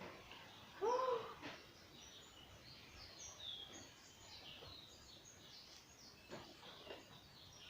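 Birds chirping faintly and repeatedly in the background, with one louder short rising-and-falling hum about a second in.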